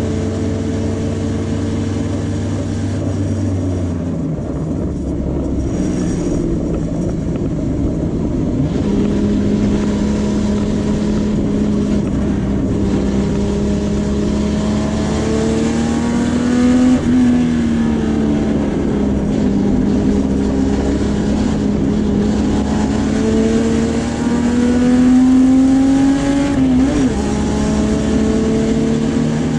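Puma GTB race car's engine heard from inside the cockpit. It runs steadily at high speed, changes note as the car slows hard for a corner, then pulls hard again in rising revs. There are two upshifts, at about seventeen and twenty-seven seconds.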